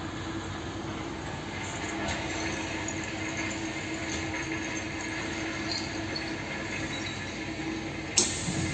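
Steady hum with one low steady tone in the cab of a class 362 dual-system electric locomotive. About eight seconds in, a switch on the driver's control desk is turned with a sharp click.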